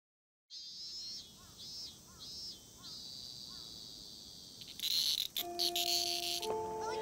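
Cicadas buzzing in pulsing bursts, swelling into a loud dense buzz about five seconds in. Near the end, a few held chime notes start over the buzz.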